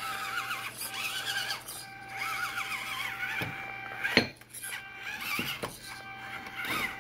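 Electric motor and gears of a 1/24-scale Element RC Enduro24 Trailrunner crawler whining, the pitch wavering up and down as the throttle is worked while it climbs. A sharp knock about four seconds in as the truck bumps over the coasters.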